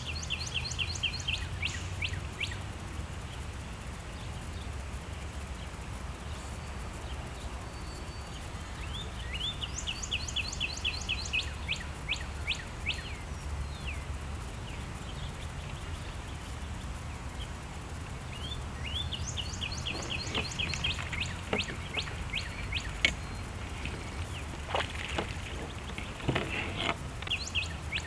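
A songbird singing phrases of rapid, evenly repeated high chirps, several seconds long and coming back about every ten seconds, over a steady low rumble. A few light clicks and knocks come in the second half.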